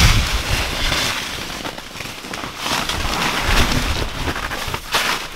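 Wind buffeting the microphone outdoors: a steady noisy rush with gusty low rumbles, strongest at the start and again about three and a half seconds in.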